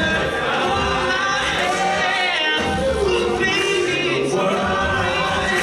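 All-male a cappella group singing in close harmony, several voices holding and sliding between sustained notes, with no instruments.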